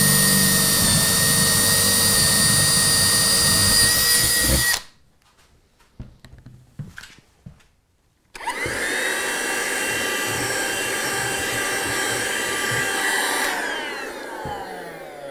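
Cordless drill running steadily as it bores a hole through the baseboard, stopping about five seconds in. After a few seconds of small handling clicks, a handheld vacuum cleaner runs for about five seconds sucking up the sawdust, then switches off and winds down with a falling whine.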